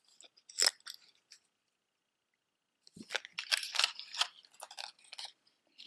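Costume jewelry earrings clicking and rustling as they are handled and set down. There is a sharp click about half a second in, a pause, then a run of quick clicks and rustles from about three seconds in.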